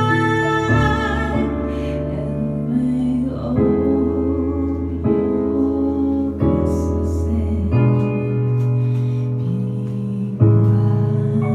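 Live music: a slow piece of long held chords that change every second or two, with piano or keyboard and singing.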